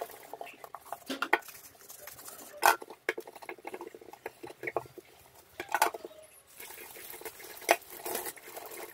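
Scrubbing a stainless steel kitchen sink with a soapy sponge and scrubber: scattered clicks and knocks against the steel basin. Tap water starts running into the sink near the end.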